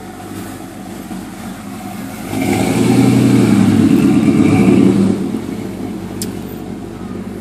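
A motor vehicle's engine passing close by, growing louder about two seconds in and fading away after about five seconds.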